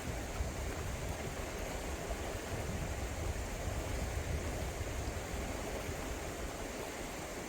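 Steady rush of flowing river water, an even wash of noise with a low rumble beneath it.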